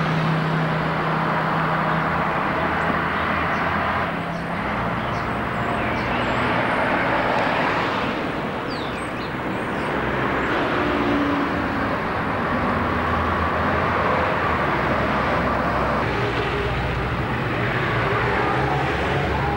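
Motor traffic noise: a steady engine hum and road noise from vehicles moving along a town street. The hum shifts a couple of times.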